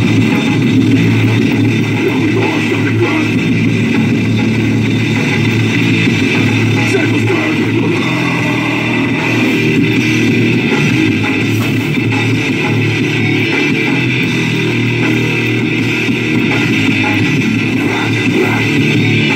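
Rock music with guitar and drum kit, playing on the truck cab's radio.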